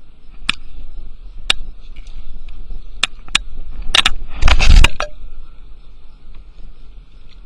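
A few sharp clicks or knocks, then a louder clatter about four and a half seconds in, over a steady wind rumble on the microphone.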